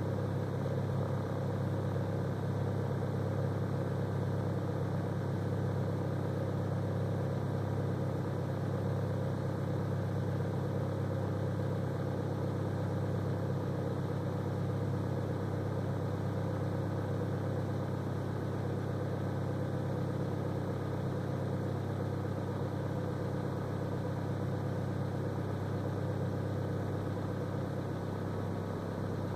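A 2004 Kia Rio's 1.6-litre four-cylinder petrol engine idling steadily as a low, even hum, heard from inside the cabin. The engine is still cold, warming up after a cold start in deep frost of about −24 °C.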